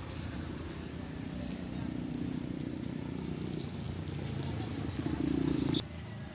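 Bajaj Caliber's single-cylinder four-stroke engine running, rising in level near the end, then switched off and cutting out suddenly with a click about six seconds in.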